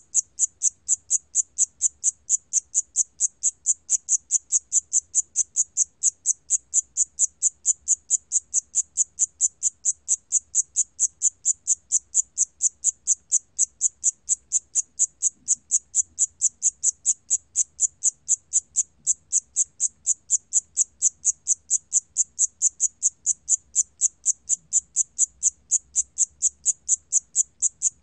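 Siamese cricket (샴귀뚜라미) calling at 28 °C: a steady, even train of short, high-pitched chirps, about three to four a second.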